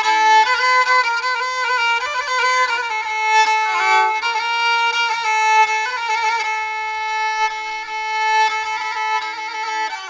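Background music: a solo bowed string melody, violin-like, moving through ornamented turns between sustained notes.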